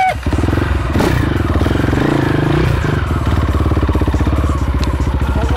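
Enduro motorcycle engine running close by, a rapid, even firing rhythm that shifts slightly in revs between about one and three seconds in.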